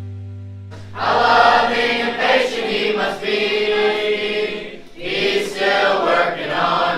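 Background music fading out, then a large group of boys and young men singing together from about a second in, with a brief break just before five seconds.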